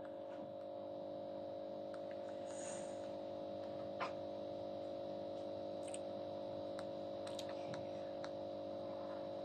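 A steady hum of several held low tones, with a few faint fingertip taps on a smartwatch touchscreen. The sharpest tap comes about four seconds in.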